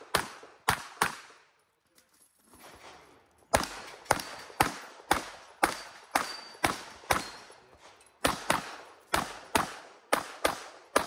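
Rapid shots from a Glock 26L 9mm pistol. Three shots come first, then a pause of about two seconds. After that the shots follow in a fast steady string, about two to three a second, to the end.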